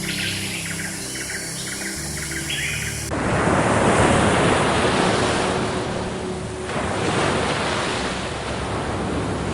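Repeated short, high animal calls over a low music drone, then an abrupt cut about three seconds in to a steady rush of ocean surf that swells and eases twice.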